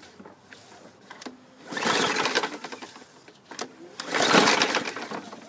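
Two pulls on the recoil starter of a Craftsman push mower's Briggs & Stratton 140cc engine, about two seconds apart, each a second-long burst of the engine cranking over without starting.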